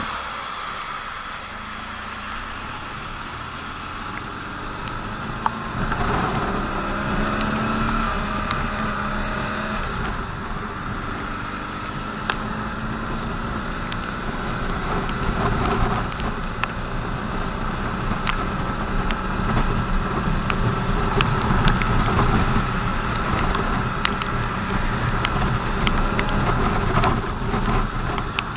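BMW R 1200 GS boxer-twin engine pulling away and accelerating, its pitch climbing about six seconds in, then running at speed with wind and road noise that grow louder toward the end. Scattered short ticks sound over it.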